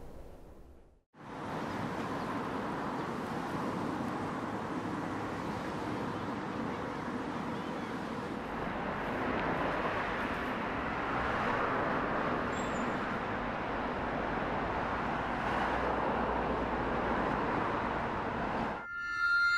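Steady hiss of distant road traffic, an even outdoor background, starting suddenly about a second in after a brief silence. Music with held tones comes in just before the end.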